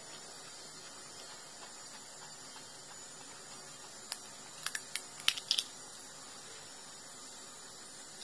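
A crisp panipuri (golgappa) shell cracked open with the fingers: a quick run of sharp crackles around the middle, over a faint steady hiss.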